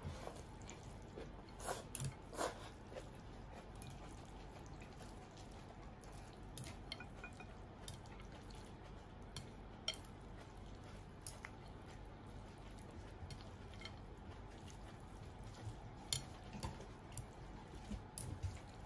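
Chopsticks mixing cold instant ramen noodles in a ceramic bowl: faint handling sounds with scattered light clicks of the chopsticks against the bowl.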